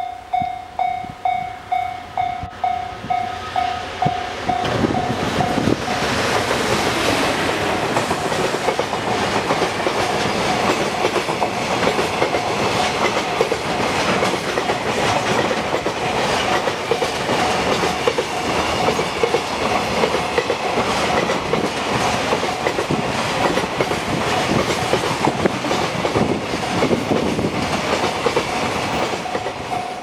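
Japanese level crossing warning bell ringing about twice a second as an EF510 electric locomotive approaches; from about five seconds in the locomotive and a long train of container wagons pass close by, wheels clattering over the rail joints and drowning out the bell, which rings through again at the very end as the last wagons clear.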